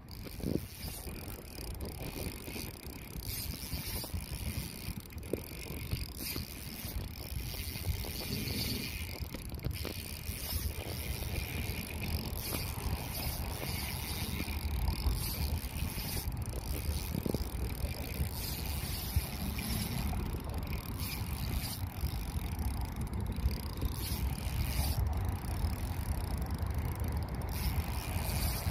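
Wind buffeting the microphone: a steady, uneven low rumble with a faint hiss above it.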